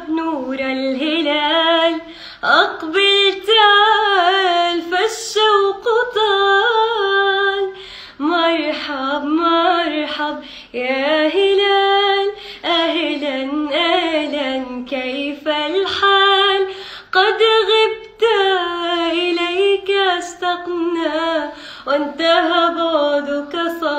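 A woman singing solo with no accompaniment, an Arabic Ramadan song melody in long, ornamented phrases that bend up and down, with short breaths between phrases.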